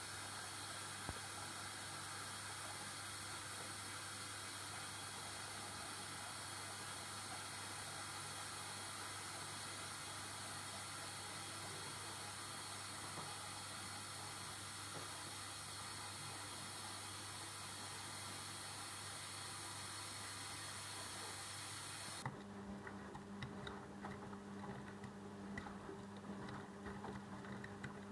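Arçelik washing machine running a rug wash: a steady hiss for most of the time. About 22 s in, the hiss stops abruptly and a low hum with irregular light ticks follows.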